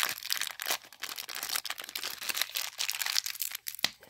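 Small wrapper of an advent-calendar toy crinkling and crackling as fingers pull at it to tear it open, a dense run of crackles with one sharper snap near the end.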